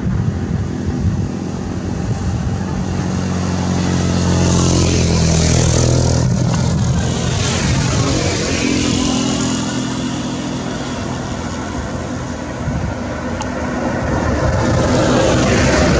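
Road traffic passing close: Hino diesel trucks and cars running with tyre noise. A truck engine hums low and steady at first, a vehicle sweeps past about six to eight seconds in, and another truck comes up louder near the end.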